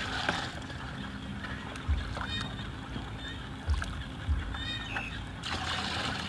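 Water sloshing and pouring from a plastic basin into a plastic bucket, loudest in the last second or so. A few dull low thumps and a couple of short honking calls are heard in the middle.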